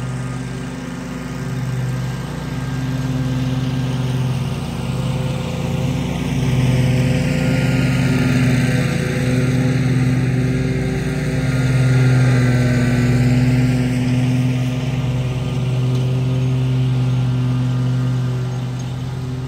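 Gravely Pro-Stance 36-inch stand-on mower's engine running steadily under mowing load as the mower travels across the lawn, its sound swelling louder around the middle and easing off near the end.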